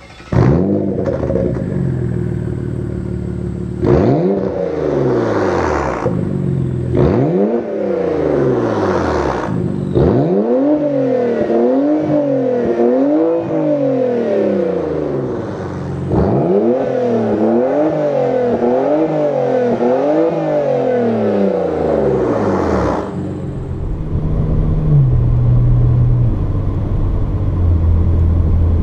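Porsche Macan's twin-turbo V6 through an AWE Touring Edition exhaust, firing up and then revved while standing still. Two single revs come first, then two runs of quick back-to-back revs. It settles to idle, which drops a step in pitch near the end.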